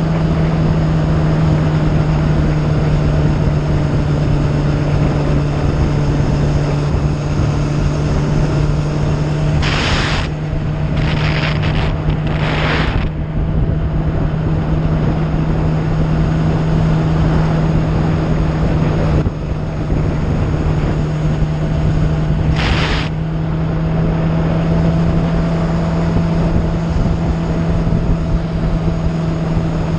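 Motorcycle engine running at a steady cruising speed, holding one even pitch, with wind rushing over the microphone. Short rushes of louder hiss come about ten to thirteen seconds in and again near twenty-three seconds.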